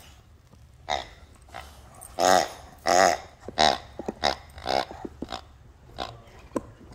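A rubber squeaky toy squeaking again and again as a dog chews on it, a string of short squeals at uneven intervals.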